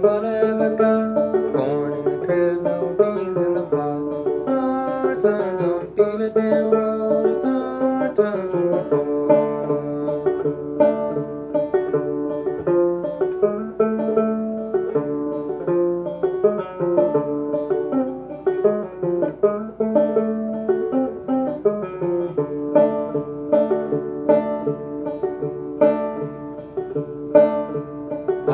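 A c.1891 A.C. Fairbanks "Fairbanks and Cole" banjo played clawhammer style with a thumb lead: a steady, rhythmic run of plucked melody notes and brushed strums.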